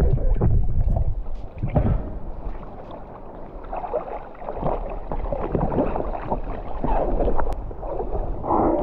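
Surging sea water sloshing and splashing, with a heavy low rumble for about the first two seconds, then lighter, irregular splashes.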